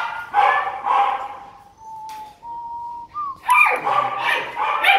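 Caged puppies yapping, with a long, thin whine in the middle, then a quick run of yaps near the end.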